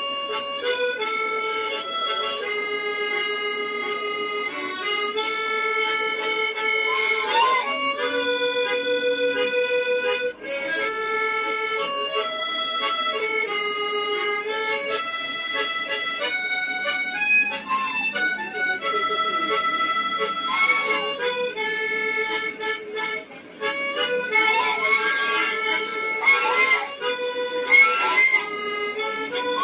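Slow instrumental melody of long held, reedy notes, some with vibrato; near the end the pitches waver and slide.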